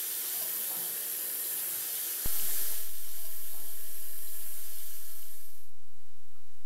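Water running from a bathroom faucet into a sink basin as a steady hiss that stops near the end. A click comes about two seconds in, and a low steady hum continues after it.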